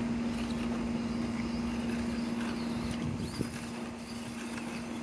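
Steady whine of a small 1/24-scale RC crawler's electric motor and gears as it crawls over gravel, with a single sharp click about three and a half seconds in.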